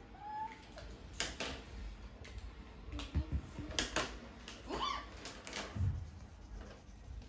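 Felt-tip markers being used for colouring on paper over lap desks: scattered taps and clicks, with a few short squeaks.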